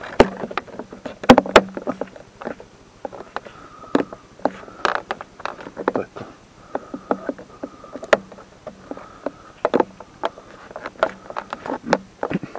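Hard plastic car-door trim being pushed and snapped into its groove by hand: a run of irregular sharp clicks and knocks.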